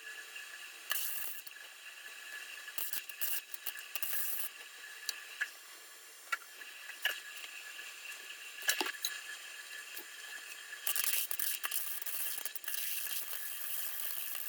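Flux-core arc welder sizzling and crackling in short bursts on steel, with a longer weld bead near the end and scattered metal clicks between.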